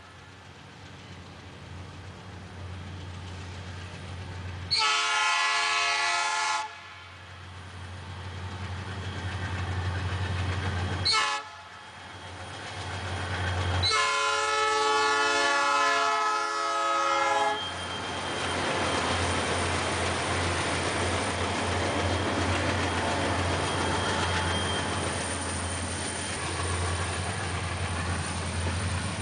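Diesel freight locomotives approaching and sounding their air horn: a blast of about two seconds some five seconds in, a short toot near eleven seconds, and a longer blast of about three and a half seconds from fourteen seconds. Then the freight cars roll past with a steady loud rumble of wheels on rails.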